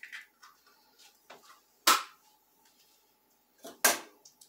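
Two eggs cracked one after the other against the rim of a small metal bowl: two sharp taps about two seconds apart, with faint shell and clinking sounds between.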